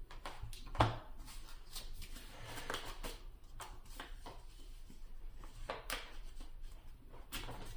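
Yu-Gi-Oh trading cards being handled and flicked through by hand: a string of short rustles and card snaps, the sharpest about a second in.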